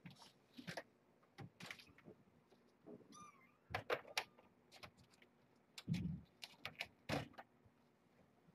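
Kittens scuffling and wrestling on a fleece blanket: a run of soft thumps and scrabbling scuffs, with a heavier thump about six seconds in. One short, high kitten mew comes about three seconds in.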